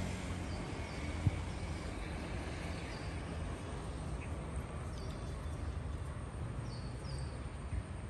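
Steady outdoor background noise with a low rumble, a few faint short high chirps scattered through it, and a single click about a second in.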